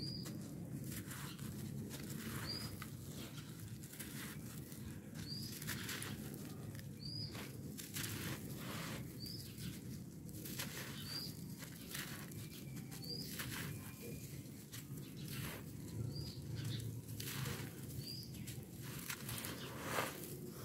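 Hands squeezing and crumbling clumps of dry red dirt: irregular gritty crunching and trickling grains. A bird chirps once every two seconds or so in the background.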